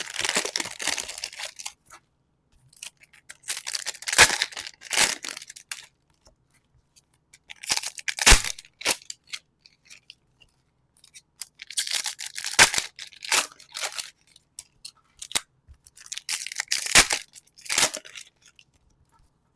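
Pokémon TCG Super Electric Breaker foil booster packs being torn open and handled, in about five bursts of tearing and crinkling with short pauses between them.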